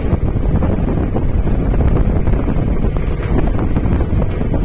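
Wind buffeting the microphone: a steady, loud low rumble with no clear engine note.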